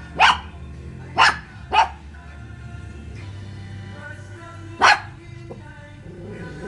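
Lhasa Apso barking: four short barks, three in quick succession and then one more about three seconds later, over steady background music.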